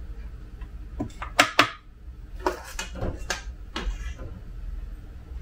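Metal spoon clinking and scraping against a metal muffin tin as thick batter is spooned into the cups: a run of sharp clinks, the loudest pair about one and a half seconds in, with more scattered through the next two seconds.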